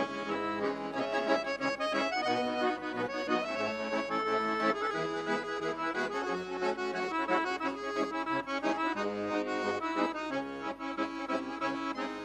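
Two piano accordions playing an instrumental interlude between verses of a hymn, a continuous melody over held chords, with no singing.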